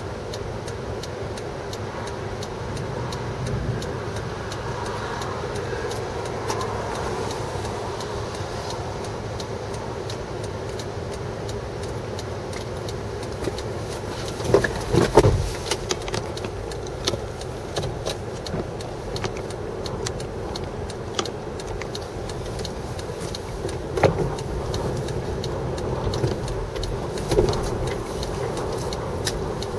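Steady roadside noise of passing car traffic and wind on the microphone, with a few short knocks and bumps about halfway through and twice more near the end.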